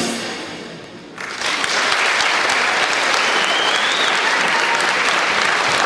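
The final chord of a musical performance dies away over about a second, then concert audience applause breaks out and continues steadily, with a short high rising tone near the middle.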